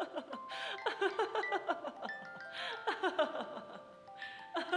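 Gentle background music of tinkling, bell-like mallet-percussion notes, like a glockenspiel or music-box melody.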